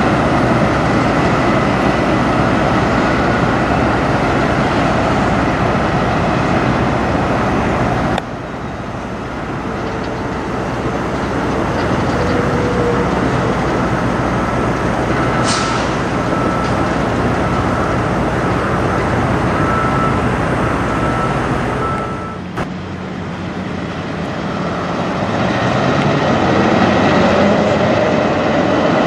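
Semi trucks' diesel engines running as the tractors roll slowly past, heard in three separate takes with abrupt changes at the cuts. A short hiss comes about halfway through.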